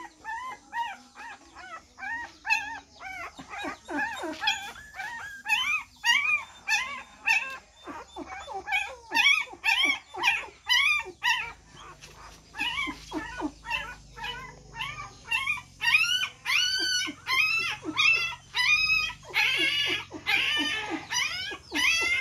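Newborn puppies crying: a rapid string of short, high-pitched squeals and whimpers, several a second, growing louder near the end.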